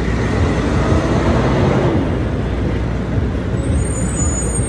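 City street traffic: a steady low rumble of passing cars, buses and trucks, with a brief high-pitched squeal near the end.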